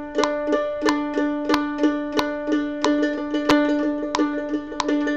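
F-style mandolin picking one repeated note in time with a quartz metronome clicking at 92 beats a minute, a measured-tremolo drill. The picking starts at about two notes per click and doubles to about four per click about halfway through.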